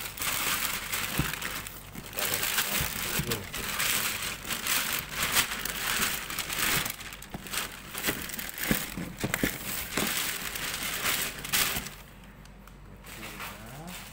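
Black plastic bag crinkling and rustling in irregular bursts as it is handled and wrapped around a cardboard box. It dies down near the end.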